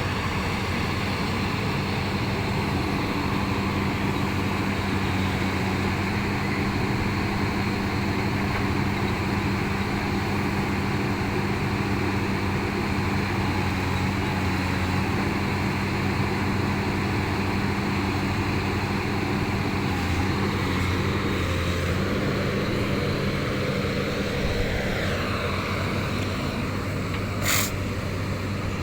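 Backhoe diesel engine running steadily under work, with a slight change in its sound about three-quarters of the way through. A single short, sharp sound cuts through about a second before the end.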